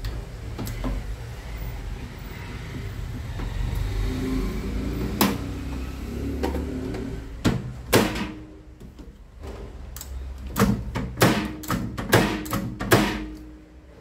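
Hands working wire connectors and metal parts inside an opened microwave oven, at the door microswitches: a low handling rumble, then sharp clicks and knocks, one about five seconds in, two near eight seconds, and a quick run of them near the end.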